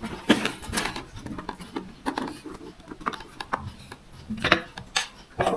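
Irregular clicks, taps and rubbing from handling and fitting a plastic action-camera mount on a helmet, with a sharper knock near the end.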